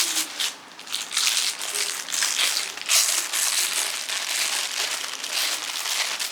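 Packaging and clothing rustling in irregular, rapid bursts as a garment is unpacked and handled.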